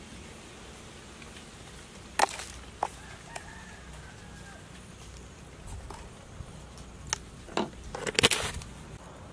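Small sharp clicks of a spoon against a plastic sugar jar as sugar is scooped and sprinkled, with a louder short clatter near the end as the jar and its lid are handled. A rooster crows faintly in the background.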